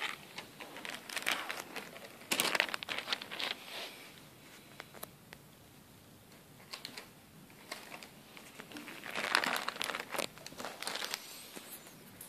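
Clear plastic bags holding plastic model-kit sprues crinkling as they are handled, in irregular bursts with quieter stretches between, loudest about two to three seconds in and again around nine to eleven seconds in.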